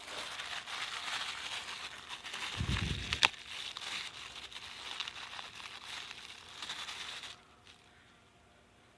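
Plastic bag of strobe fireworks being handled, crinkling, with a sharp click about three seconds in; the crinkling stops abruptly about seven seconds in.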